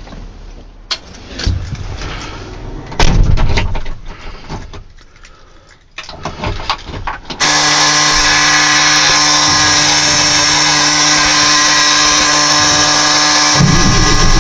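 Knocks and clatter of getting into the cab, then about seven seconds in the starter of a 1994 Ford L8000 dump truck's diesel engine cranks with a steady whine for about six seconds. Near the end the engine catches and starts running with a low rumble after a month of sitting.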